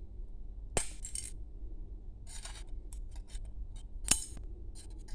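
Small hand tools clicking and scraping against the stereo's small parts while the backlight lamps are being worked loose: a few sharp clicks, the loudest about four seconds in, with short scratchy scraping between them, over a steady low hum.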